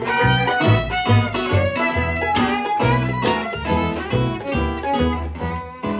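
Fiddle playing a lively lead melody over guitar accompaniment with steady bass notes on the beat, an instrumental break in a live acoustic blues number.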